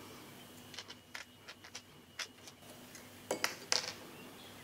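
Small metallic clicks and ticks of a wire trace, treble hook and pliers being handled while the wire is twisted on. There is a scatter of light ticks in the first half, then a few louder clicks about three and a half seconds in.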